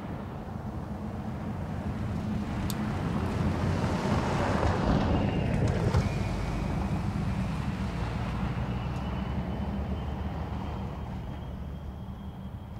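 2024 Toyota Tacoma i-Force Max's 2.4-litre turbocharged four-cylinder hybrid engine and tyres on a dirt track as the truck drives past: the sound swells to its loudest about five seconds in, then fades as it pulls away.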